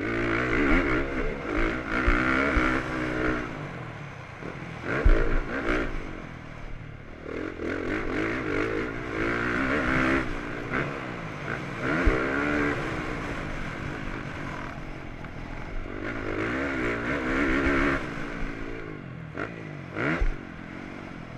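Motocross bike engine heard onboard, revving hard and repeatedly climbing in pitch then dropping as the rider accelerates, shifts and rolls off through a lap. A few sharp knocks cut through about a quarter, a half and near the end of the way through.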